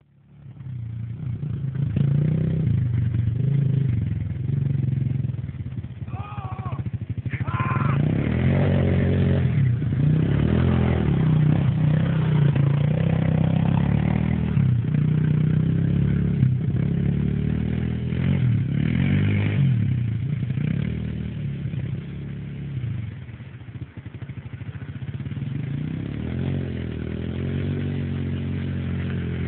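Small quad bike's engine running and being revved as it is ridden round on snow, its pitch rising and falling with the throttle.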